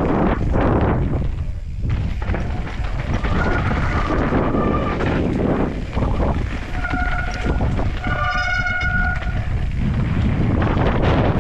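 Mountain bike descending a loose dirt and gravel trail: a steady rumble of wind on the microphone and tyres over the dirt, with the bike rattling. A high, steady whine from the bike comes in twice, briefly a few seconds in and for about two seconds past the middle.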